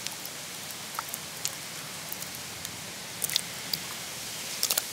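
A hand scooping and pressing wet green herb paste in a stone grinding mortar: soft wet squelches with a few small sharp clicks over a steady background hiss.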